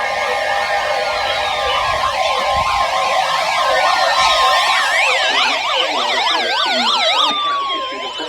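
Several electronic siren sounds overlapping: quick up-and-down yelping sweeps layered with steady alert tones and long falling glides.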